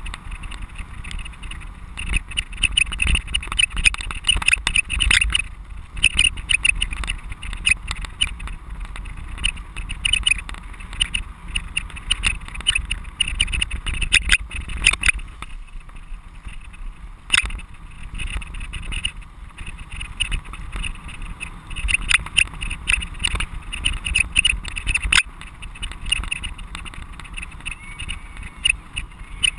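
Bicycle-mounted camera rattling and knocking on its mount as the bike rides over rough grass, with a steady low wind rumble on the microphone and irregular clatter throughout.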